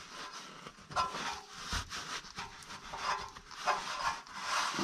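Cloth rag rubbing over the underside of an engine oil pan, wiping around the drain plug hole in a series of short strokes.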